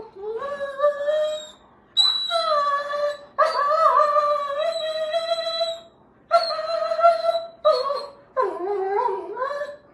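Two Dobermans vocalizing while they play-fight, a run of about six long, drawn-out whining howls with short breaks between them, the longest held for over two seconds in the middle.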